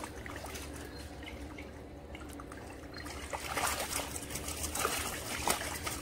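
Water trickling and dripping from a mesh keep net being raised out of a pond. From about three seconds in, carp and crucian carp thrash in the net and splash at the surface.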